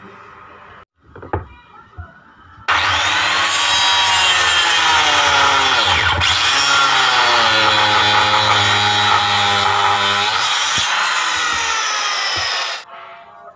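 Handheld angle grinder cutting a groove along a wooden block. The loud motor whine starts suddenly about three seconds in, its pitch sagging and recovering as the disc bites into the wood, then stops abruptly near the end.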